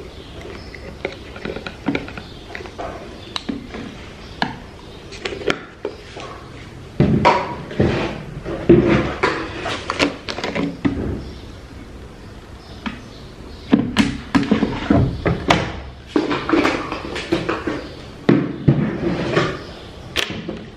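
Plastic laundry bottles and a measuring cup being handled, with repeated knocks and clatter as soap and fabric softener are poured and put away.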